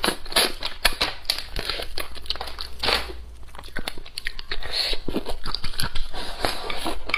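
Close-miked eating sounds of braised fish: wet, irregular smacking, sucking and chewing clicks as meat is pulled off the bones with the mouth and chewed.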